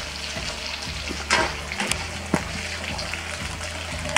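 Dried anchovies sizzling in hot oil in a wok on a gas burner, with a few clinks of a metal slotted spoon against the pan as they are stirred.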